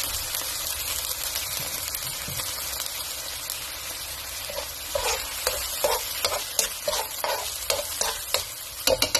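Soy-and-vinegar braising sauce sizzling in a hot wok. From about five seconds in, a spoon stirs it and scrapes and clicks against the pan in quick, uneven strokes, loudest near the end.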